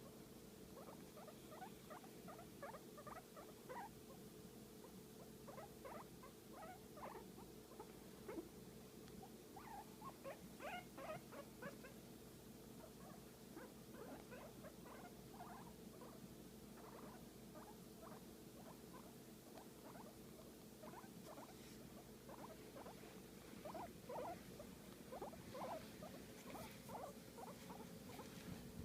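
A guinea pig making a run of short, faint squeaks in irregular clusters, sometimes several a second, over a steady low hum.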